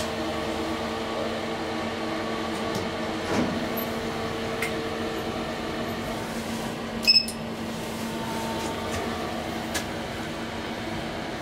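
Steady hum with a few even tones inside a traction elevator car standing at a floor. A soft knock about three seconds in and a sharp click about seven seconds in.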